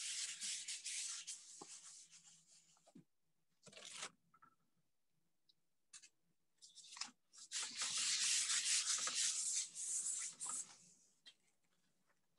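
A hand rubbing a sheet of paper pressed flat against a canvas, pressing wet acrylic paint from the paper onto the canvas. It is a dry, scratchy rubbing in two spells of a few seconds each, the second longer, with a few short strokes between.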